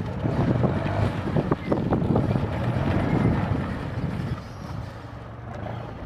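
Heavy off-road vehicle's engine running under load, with irregular clanks and rattles, louder for the first few seconds and then easing off.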